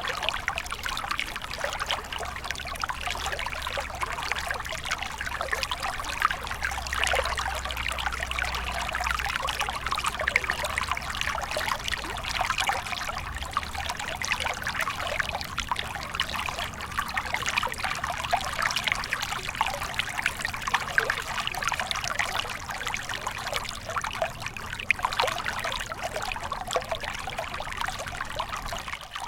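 Water stream flowing, a steady trickling and babbling of running water.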